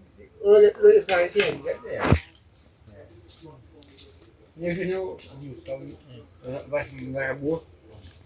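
Crickets chirring in a steady high-pitched drone, with people talking in the background in two stretches, the louder one near the start.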